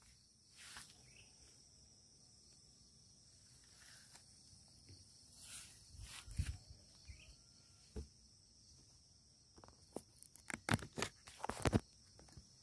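Footsteps rustling and crunching through grass and undergrowth, starting about ten seconds in, over a faint steady high insect drone.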